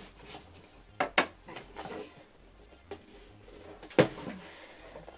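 A cardboard subscription box being opened and handled: a few sharp knocks and taps, the loudest about four seconds in, with a brief rustle of packing.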